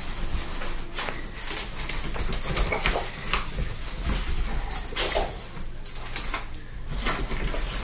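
Dogs' claws clicking and skittering on a tile floor as a boxer and a small terrier dart around, with a few short whines.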